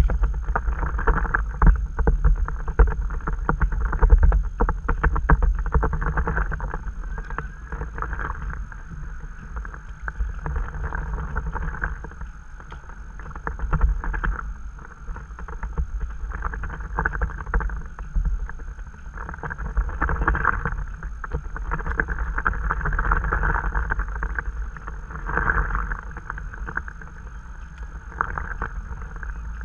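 Stand-up paddle splashing through the water on each stroke, with water sloshing and lapping against the board, and wind rumbling on the microphone.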